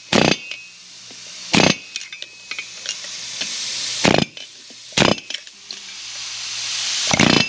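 Pneumatic air hammer firing in five short bursts, irregularly spaced, with a hiss that builds between bursts. It is driving press-fit wheel studs into a hub and adapter ring, not yet fully seated.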